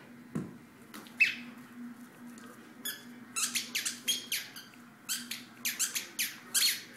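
Dog biting a squeaky toy, making short squeaks: a few spaced out at first, then about a dozen in quick succession over the last four seconds.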